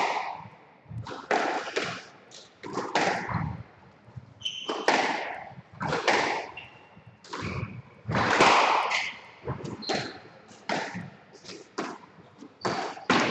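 Squash rally: the ball struck by rackets and cracking off the court walls about once a second, each hit ringing briefly in the court, with a few short squeaks of players' shoes on the wooden floor.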